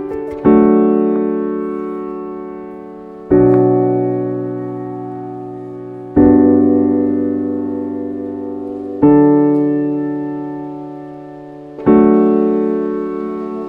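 Slow background piano music: a sustained chord struck about every three seconds and left to ring and fade before the next.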